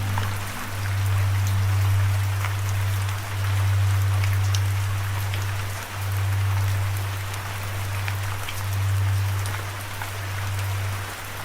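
Steady rain with scattered individual drops ticking sharply, over a low, steady droning tone that breaks and restarts every two to three seconds.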